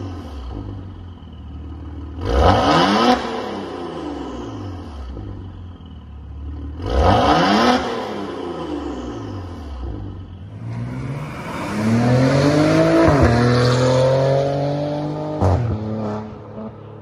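Maserati Ghibli SQ4's 3.0-litre twin-turbo V6 through a Tneer cat-back exhaust, revved at a standstill from idle. There are two short throttle blips a few seconds apart, then a longer rev that climbs, holds at higher revs for a couple of seconds, and drops back with a sharp pop.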